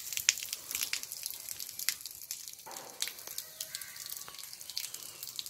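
Water running out of the end of a siphon pipe and splashing, heard as a dense, irregular patter of small splashes: muddy water being drawn out of a water tank.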